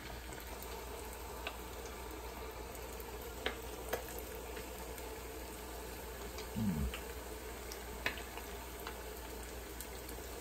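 Coated perch fillets deep-frying in hot oil in an electric deep fryer: a steady sizzle with a few faint ticks and pops. A brief low sound comes about two-thirds of the way through.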